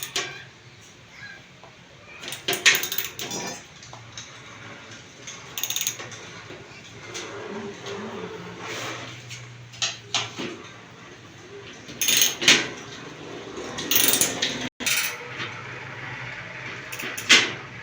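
Hand tools at work on a bed base: a ratchet clicking in short runs, with scattered knocks and clatter.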